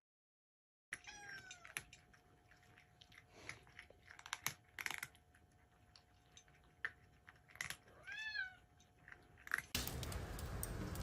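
A cat meowing faintly: short calls about a second in and again near eight seconds, among soft scattered clicks and crunches. A louder steady noise starts near the end.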